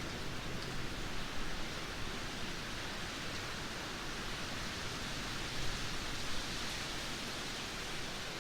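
Heavy rain pouring down in a steady, dense hiss with no breaks, swelling slightly about two thirds of the way through.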